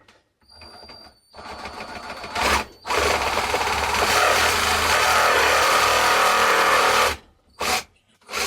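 Cordless reciprocating saw in use: a short trigger run, then about four seconds of steady running while cutting, which stops abruptly, followed by a couple of clicks.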